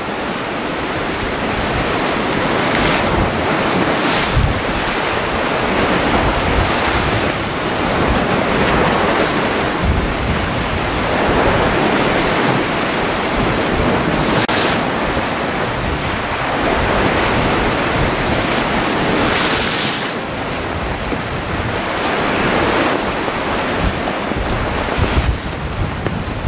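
Heavy sea surf breaking and washing against rocks, with wind buffeting the microphone. The rush swells in surges every few seconds.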